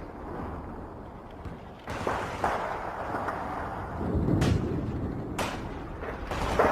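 Explosion-like sound effect: a low rumble with sudden cracks and blasts, growing louder about two seconds in and again about four seconds in.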